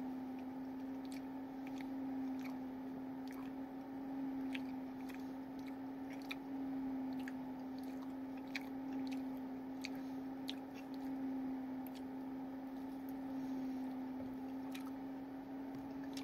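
A person chewing mouthfuls of chicken teriyaki potsticker dipped in sweet chili sauce, with small wet mouth clicks scattered throughout. A steady low hum runs underneath.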